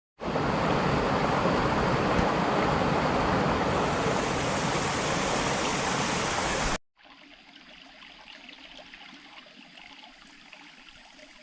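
Loud, steady rushing water, cutting off suddenly about seven seconds in. After it comes much quieter background noise with a few faint high chirps near the end.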